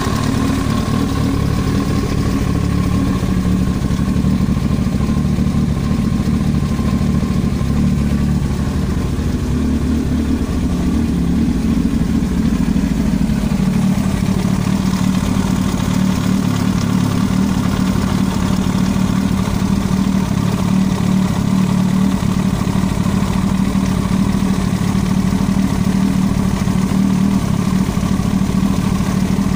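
Yamaha YZF-R1 inline-four engine running steadily, its tone shifting slightly about halfway through, with an extraneous knocking noise from the cylinder head.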